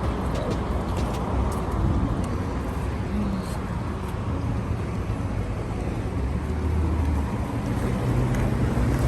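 Steady low rumble of a moving vehicle, with a deeper hum building over the last few seconds.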